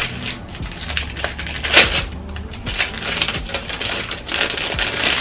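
A bundle of bracelets being handled and unpacked: irregular light clicks and rustles, with a louder clack a little under two seconds in.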